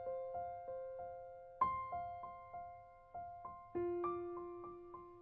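Soft background music on a keyboard: single ringing notes struck a few times a second in a slow, gentle melody, with a lower note coming in a little past the middle.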